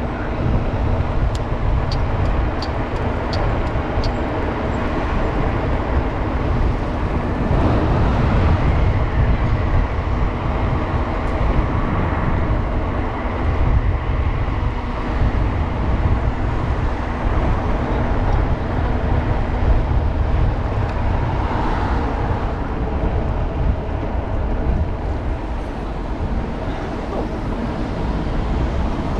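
Traffic and road noise heard from a moving bicycle: a steady low rumble under a broad noise haze, with a short run of light, high ticks in the first few seconds.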